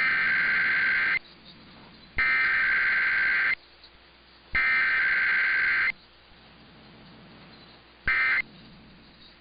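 Emergency Alert System SAME header: three harsh buzzing data bursts, each a little over a second long and about a second apart, made of two rapidly alternating tones. About two seconds after the third, a much shorter burst of the same tones sounds, the first end-of-message burst.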